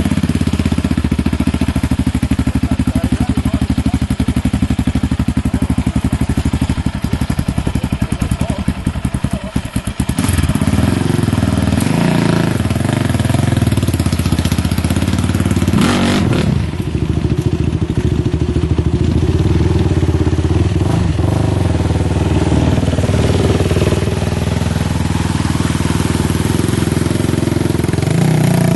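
Sport quad (ATV) engine running and revving as the quad is ridden through creek water. The engine note drops and changes about ten seconds in.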